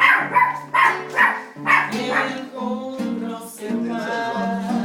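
A dog barks about six times in quick succession over a playing song, then the music carries on alone.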